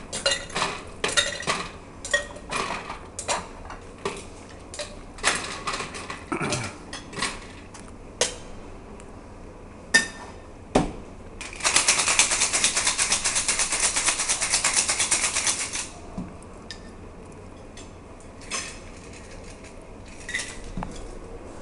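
Glasses, bottles and a metal jigger clinking and knocking on the bar as a cocktail is built. About halfway through, a cocktail shaker is shaken hard for about four seconds, ice rattling fast and evenly inside the metal tin. A few light clinks follow as the drink is poured out.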